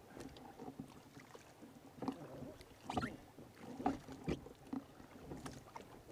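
Kayak paddle strokes: the blade dipping and splashing in the water, with drips in between. The splashes come irregularly, a few louder ones about two, three and four seconds in.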